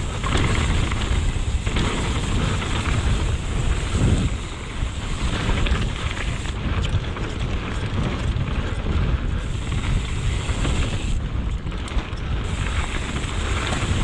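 Santa Cruz Megatower mountain bike rolling fast down a dirt singletrack: steady wind buffeting the microphone over the rumble of the tyres on the dirt, with scattered rattles from the bike over bumps.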